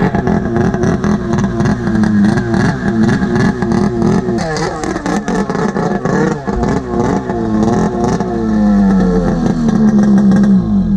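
Two-stroke snowmobile engine revving, its pitch rising and falling again and again, then held at a steady high rev near the end.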